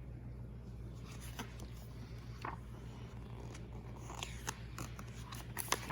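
Scattered small clicks and rustles of a picture book being handled, its page turned, with a cluster of sharper clicks near the end, over a steady low hum.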